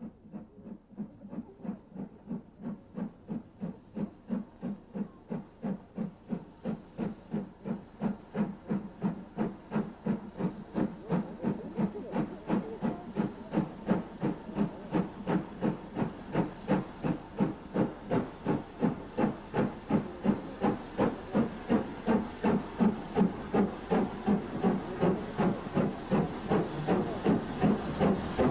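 BR Standard Class 7 Pacific No. 70000 Britannia working a train, its two-cylinder exhaust beating in a quick, even rhythm that grows steadily louder as the locomotive approaches.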